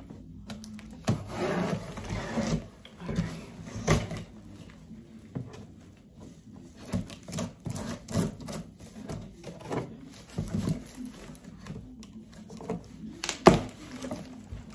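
Scissors slitting the packing tape on a large cardboard box: scattered scraping, snipping and tapping of the blades against the cardboard, with rustling. Then the box flaps are pulled open, with one sharp loud snap of cardboard and tape a little before the end.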